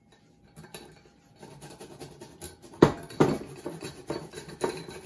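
Kitchen clatter: a run of knocks and clinks of utensils and dishes. The loudest knock comes about three seconds in, followed by several more about half a second apart.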